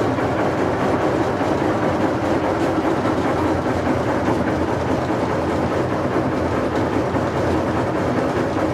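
Ruston and Hornby diesel locomotive running, heard from inside its cab: a steady engine rumble mixed with the rattle of the locomotive on the track.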